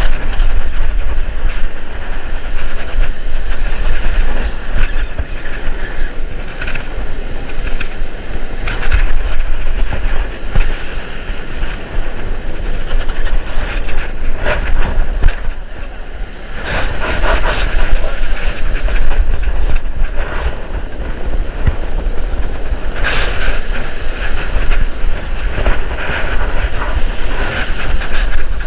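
Surf crashing and wind rumbling on a body-worn camera microphone, with the rough rhythmic clatter of a spinning reel being cranked while fighting a fish.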